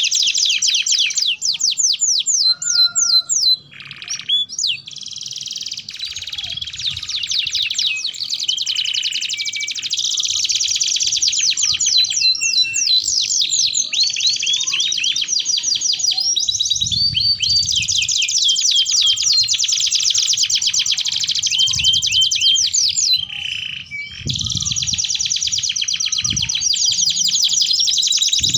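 Domestic canary singing a long, loud song of rapid trills and rolls, full and nonstop in the way canary keepers call gacor, broken only by two short pauses.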